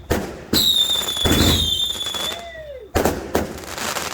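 Fireworks going off in quick succession: a string of sharp bangs, the loudest of them carrying a shrill whistle that slides a little down in pitch and holds for under a second. A dense crackling follows the last bangs near the end.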